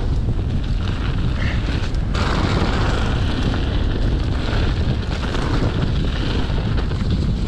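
Wind rushing over the microphone of a mountain bike rider going down a dirt trail, a steady heavy rumble mixed with tyre noise and short rattles from the bike over the ground.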